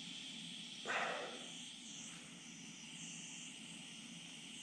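Butane pencil torch flame hissing steadily as it heats solder into a crack in a brass carburetor float. About a second in comes one short, louder sound that fades within half a second.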